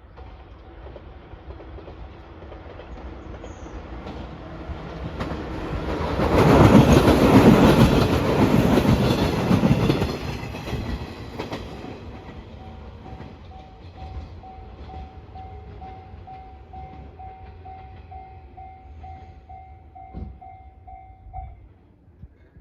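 A train passes over a level crossing, loudest from about six to ten seconds in. The crossing's warning bell dings steadily, about twice a second, and stops shortly before the end.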